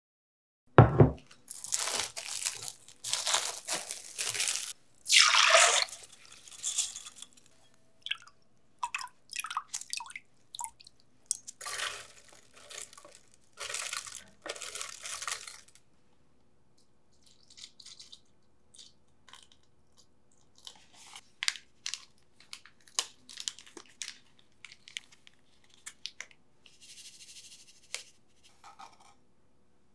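Rice tipped into a plastic blender jar, the grains rattling and hissing against the plastic in two spells of pouring. Then come quieter scattered clicks and a short trickle.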